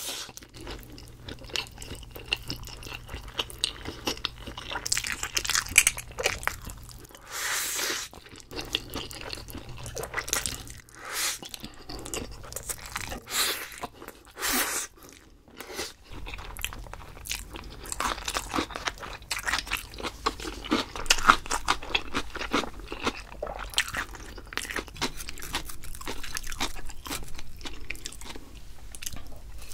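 Close-miked crunching and chewing as a person bites into crispy fried food, one crackly bite after another, with several louder crunches along the way.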